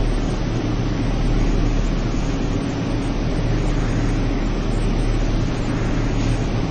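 Anyang horizontal radial-axial CNC ring rolling machine running steadily as it rolls a red-hot steel ring: a continuous machine drone with a low hum under an even hiss.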